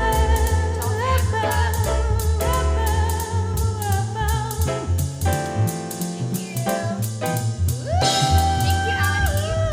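A song with a singer holding wavering notes over bass and a steady drum beat. The bass drops out briefly around the middle and returns with a rising vocal glide.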